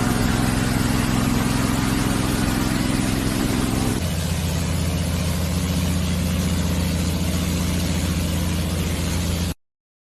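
An engine running steadily. Its tone changes abruptly about four seconds in, and it cuts off suddenly near the end.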